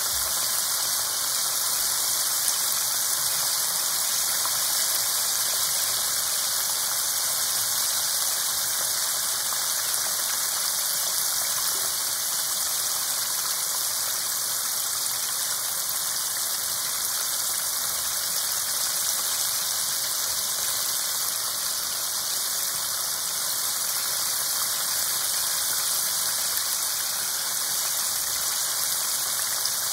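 Chicken pieces deep-frying in hot oil, a steady sizzle of bubbling oil.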